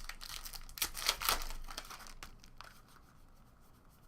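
Foil wrapper of a trading-card pack crinkling and tearing as it is ripped open, loudest about a second in and dying down to faint rustling after about two seconds.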